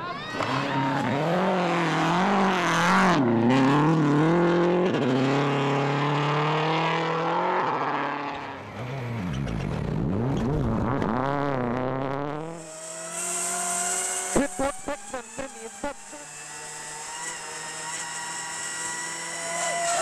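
Rally car engine at full throttle, its pitch climbing and dropping repeatedly through gear changes. A car then sweeps past, followed about two-thirds of the way in by a quick run of sharp cracks and a steadier engine note under a high hiss.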